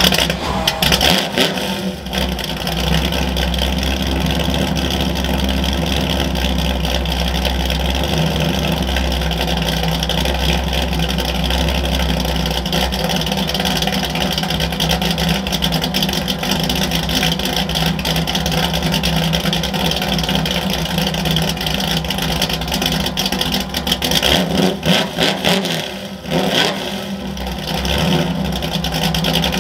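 Ford F100 pickup's engine idling through a freshly built dual exhaust with Black Widow Widow Maker 10 mufflers and a stainless X-pipe, just after starting. The idle holds steady, then a few short revs come near the end.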